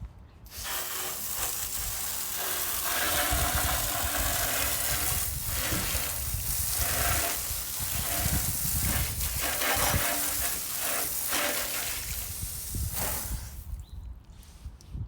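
Garden hose spraying water onto an RV tire to rinse it. The spray starts about half a second in, swells and dips as it moves over the surface, and cuts off shortly before the end.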